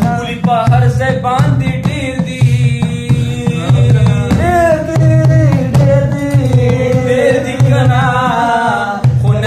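Unaccompanied-style folk singing by a voice with long, wavering held notes over hand drumming on a plastic container used as a drum.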